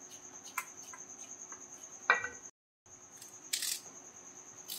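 Small knife cutting tomato and onion over a steel plate: a few light clicks of the blade and a short crisp scrape about three and a half seconds in. Crickets chirp steadily underneath with a fast, even pulse.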